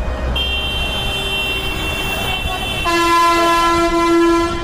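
Long, steady vehicle horn blasts over traffic rumble: a high-pitched horn sounds from about half a second in, and a louder, lower horn joins about three seconds in and holds.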